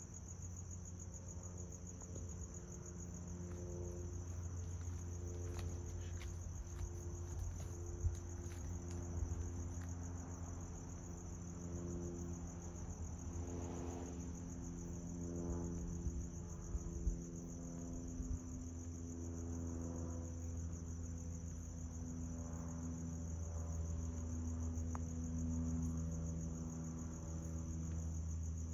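Crickets trilling in a continuous high-pitched chorus, with a low hum underneath and a few faint knocks about eight, nine and seventeen seconds in.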